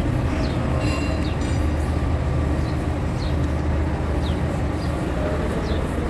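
A steady low machine rumble runs throughout. A few short, faint, high chirps that fall in pitch sound over it now and then.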